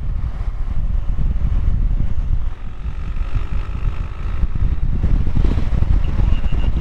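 Heavy wind buffeting on the helmet-mounted microphone of a BMW R1100GS under way, with the bike's air-cooled boxer-twin engine running underneath at a steady road speed.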